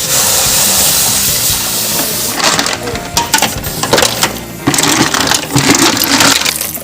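River clam shells clattering and knocking against one another in several short bursts, after a steady hiss in the first two seconds or so.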